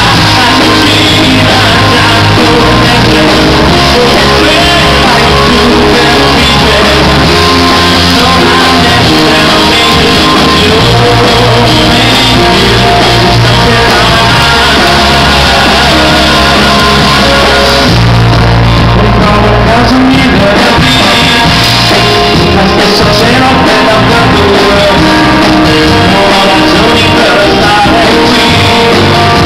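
Live rock band playing with a male lead singer singing into the microphone, very loud throughout. The bright top end thins out about two-thirds of the way through.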